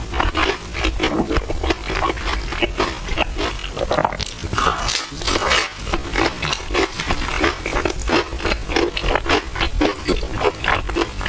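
Close-miked eating of milk tea with chewy purple rice: wet chewing and slurping mouth sounds, repeating quickly and evenly several times a second.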